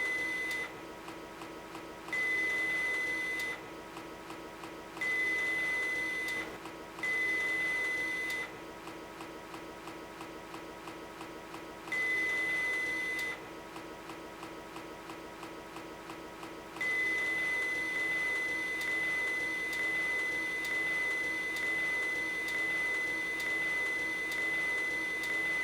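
Motors of a 3D printing mechanism whining at one steady high pitch in repeated runs of a second or so that stop and start, then in one long run of about nine seconds near the end, over a steady low hum.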